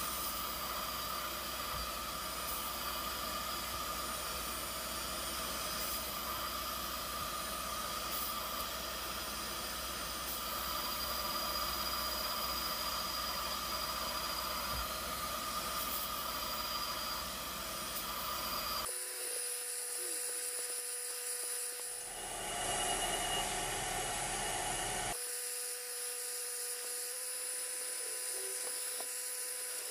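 Bissell SpotClean Pro 3624 portable carpet extractor running steadily, its suction motor whining with a hiss of air and water as the upholstery tool sprays and pulls rinse water out of a cloth car seat. It is loud, about 84 dB on a sound meter. Its tone changes abruptly about two-thirds of the way through.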